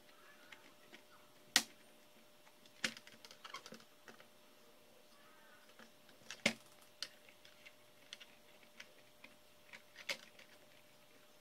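Sparse clicks and light knocks of an HP Compaq Presario CQ61 laptop's motherboard and plastic parts being handled and set into the laptop's base. The two loudest clicks come about one and a half seconds in and about six and a half seconds in.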